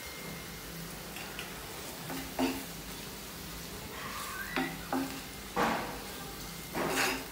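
Food frying in hot oil in a pan with a steady sizzle, stirred with a utensil that knocks and scrapes against the pan several times.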